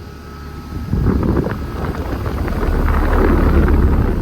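2001 American Standard Allegiance central air conditioner running, its Climatuff reciprocating compressor humming steadily. About a second in, a loud rush of air sets in, with wind buffeting the microphone.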